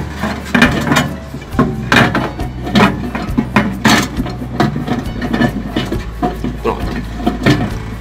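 Repeated knocks and clunks of a glass microwave turntable plate being set down and shifted on its roller ring, about two or three a second.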